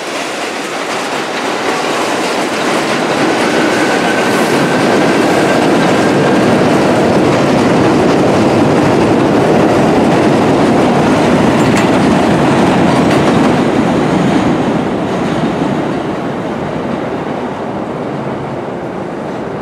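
Bombardier R62A subway train running past on the elevated track, its wheels clacking over the rail joints. It grows louder over the first several seconds, holds, then eases off as the last cars go by, with a faint wheel squeal a few seconds in.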